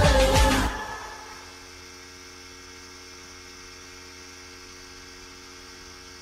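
Music cuts off under a second in, leaving a steady electrical hum.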